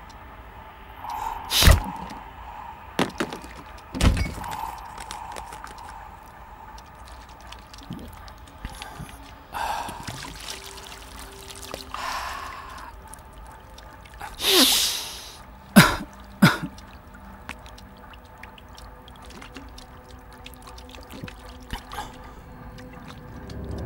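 Water poured from a plastic bottle over a man's head and splashing. There are two heavy thuds in the first few seconds and two sharp knocks about two-thirds of the way through.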